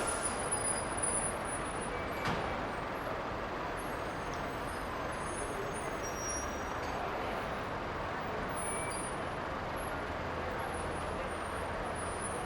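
Bus station ambience: a steady background of bus engines and traffic noise, with a short hiss right at the start and another about two seconds in.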